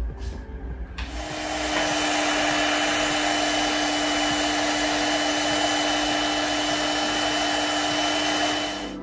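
Electric hand mixer running steadily at a constant speed, beating cake batter; it starts about a second in and stops near the end.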